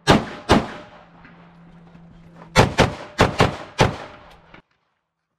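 9mm Glock 19 pistol firing in a fast competition string: two shots about half a second apart, then after a two-second pause a rapid run of about six shots. The sound cuts off abruptly near the end.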